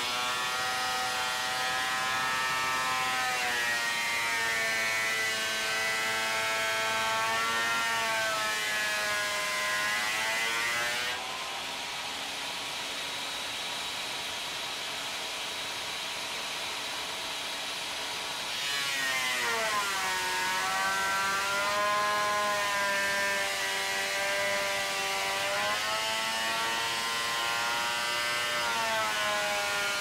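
Electric planer-thicknesser planing a board: the motor's whine sags in pitch as the wood loads the cutters and climbs back as the load comes off, several times over. About a third of the way in it drops to a quieter, steady hum for several seconds before the pitch falls again under the next pass.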